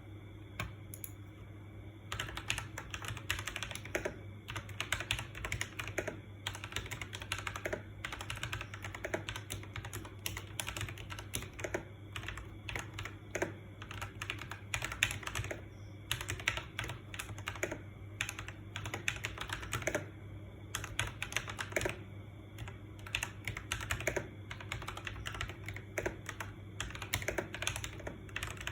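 Typing on a mechanical keyboard with Akko Ocean Blue switches: fast, continuous runs of keystrokes broken by short pauses every few seconds, over a steady low hum.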